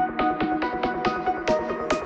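Electronic background music with a fast, steady beat of about four to five strokes a second over sustained synth notes, growing gradually brighter.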